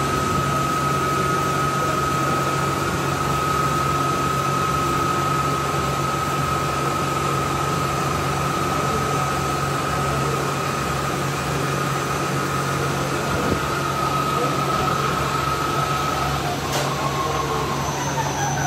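Machine-shop machinery running: a steady low hum and noise with a constant high-pitched whine, which cuts off about two seconds before the end.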